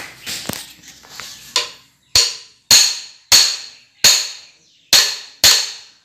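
Claw hammer striking the steel gear pack of an XGMA XG955H loader transmission to drive it into place: six sharp metal-on-metal blows with a ringing decay, about one every 0.6 to 0.8 s, starting about two seconds in. Before them there is quieter clatter of the parts being handled.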